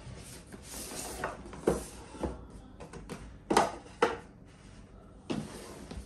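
A cardboard keyboard box being slid out of its paper sleeve with a dry scraping rustle, followed by a run of dull knocks as the cardboard is bumped and handled on the desk. The loudest are two knocks about half a second apart a little past halfway.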